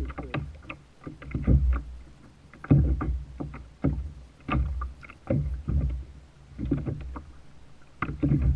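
Choppy sea water slapping and splashing against a kayak's hull in uneven bursts, about one every second or so.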